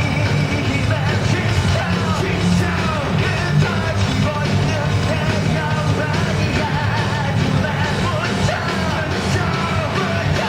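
Live rock band playing loud, with distorted guitars, bass and drums under a yelled, sung lead vocal, recorded from the audience.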